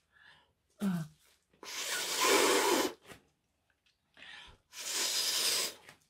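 A person blowing hard by mouth across wet acrylic paint on a canvas to push the paint outward: two long puffs of breath, about a second each, with a short hum before the first.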